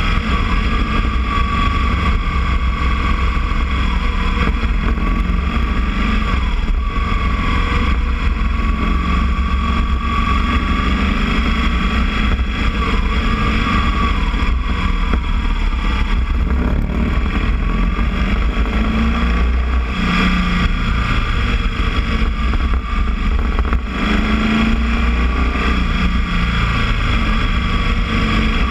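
Boxer-twin motorcycle engine running steadily, its pitch wavering slightly now and then.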